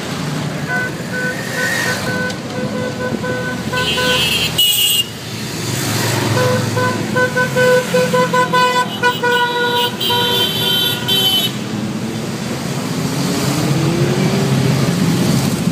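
Motorcycles riding past with engines running, and a vehicle horn sounding in two long spells, the second one broken into rapid short blasts. Near the end an engine revs up as a bike goes by.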